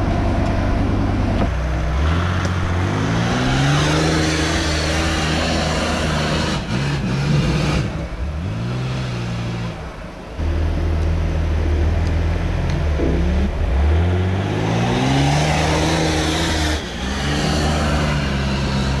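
Off-road 4x4's engine revving up under load several times. Each rev is a rising note that holds, then falls back, with a short dip about halfway through.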